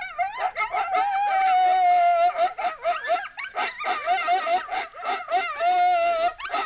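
Recorded coyote group howl played through a FoxPro Fusion electronic caller: long, steady howls overlaid with many quick, rising and falling yips, used as a locator call to draw answers from coyotes.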